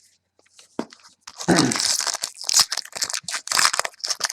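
A foil trading-card pack wrapper being torn open and crinkled in the hands. There is a rapid crackling rustle starting about a second and a half in.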